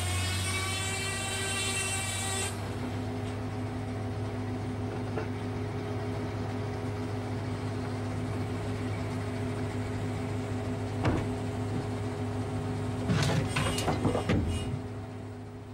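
Large circular saw in a sawmill cutting timber into sleepers, a high whine that ends about two seconds in, after which the saw's machinery runs on with a steady low hum. A single knock comes about eleven seconds in, and a clatter of knocking timber near the end.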